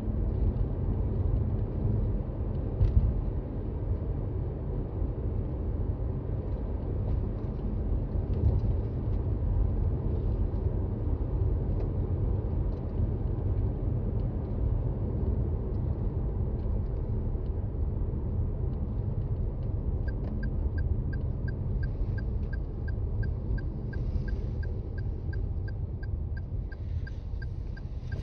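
Cabin noise of a Toyota Raize driving on a snowy road: a steady low rumble of tyres and drivetrain. About two-thirds of the way in, a regular ticking starts, about two ticks a second, typical of the turn signal.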